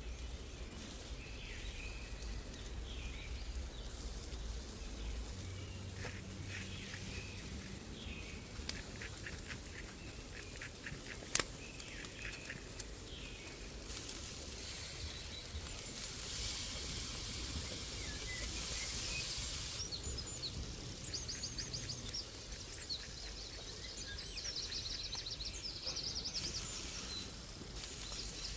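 Outdoor ambience with small birds chirping and trilling several times. A few seconds of hiss swell up past the middle, and a single sharp click sounds about eleven seconds in.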